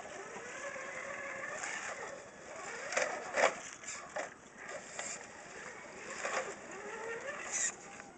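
Electric motor and geared drivetrain of an RC4WD Trailfinder scale crawler whining, rising and falling in pitch as the truck drives over grass. A few short, loud sounds come around the middle.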